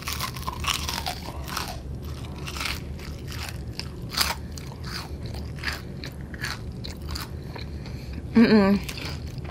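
Close-miked bite into a thick-battered deep-fried onion ring, followed by chewing with many sharp, crisp crunches of the heavy breading. A short voiced sound from the eater near the end is louder than the chewing.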